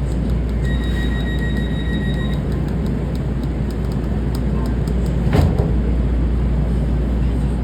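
Inside a Metro A Line light-rail train, a steady low rumble runs throughout. A steady high beep sounds for about two seconds near the start, and a single sharp clunk comes about five seconds in.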